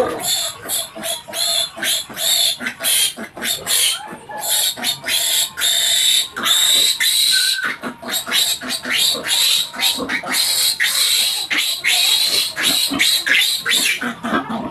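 Piglet squealing shrilly and repeatedly in distress as it is caught and held up by a leg: a fast string of short squeals, with longer drawn-out squeals at times.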